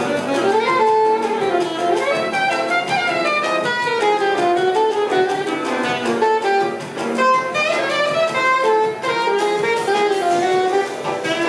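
Saxophone and grand piano playing bossa nova jazz together, with a continuous, flowing melody.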